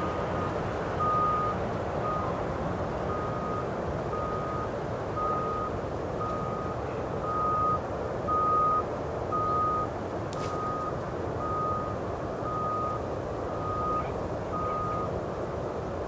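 A vehicle's reversing alarm beeping about once a second, one high tone, stopping about a second before the end, over a steady background rumble.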